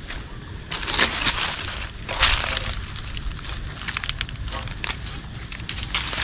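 Dry plant matter crunching and rustling in several irregular bursts, as brush or dry stalks are trodden or pushed through.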